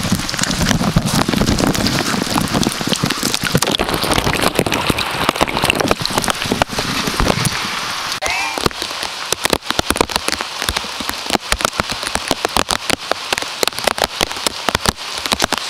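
Rain hitting the bag wrapped around the camera: a dense run of sharp taps, more separate and distinct in the second half, over a low rumble in the first half.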